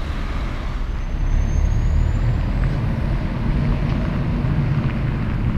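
Diesel engines of big-rig semi trucks running, a steady low rumble that swells slightly about a second in, with a faint high whistle gliding upward at the same time.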